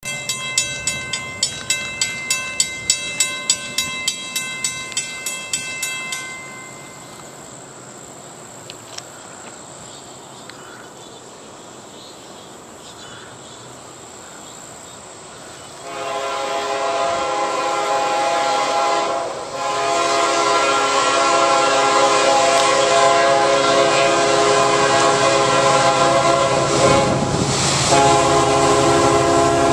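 Grade-crossing warning bell ringing at about two strikes a second for about six seconds, then stopping. From about sixteen seconds an approaching freight locomotive's multi-chime air horn sounds a loud chord in long blasts with brief breaks, its warning for the crossing.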